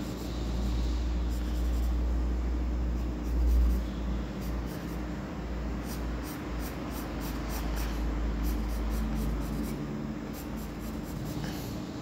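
Pencil scratching on paper in short sketching strokes, over a low rumble that swells a few seconds in and fades near the end, with a faint steady hum.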